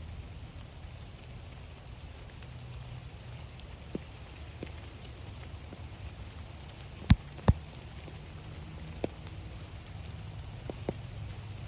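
Rain falling steadily, with scattered drips ticking close by. Two sharp knocks come about seven seconds in, a fraction of a second apart, louder than the rest.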